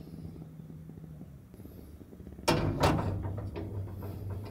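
An aluminium moka pot set down on the metal pan grate of a gas stove: two clanks in quick succession about two and a half seconds in, then a few lighter clinks, over a low steady hum.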